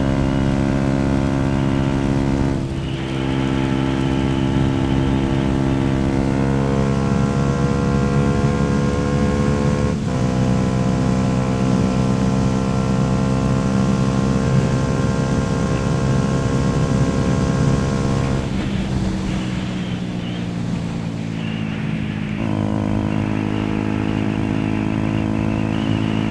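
Yamaha YZF-R125's single-cylinder four-stroke engine running while riding, with a steady engine note that dips briefly about 3 and 10 seconds in. About 18 seconds in the engine note fades, leaving mostly a rushing noise, then returns at a lower pitch about four seconds later.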